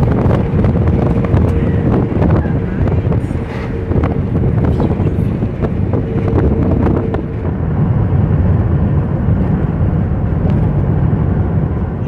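Road and wind noise from a moving car: a loud, steady low rumble with scattered small knocks and wind on the microphone. A faint steady hum sits in it for the first seven seconds or so.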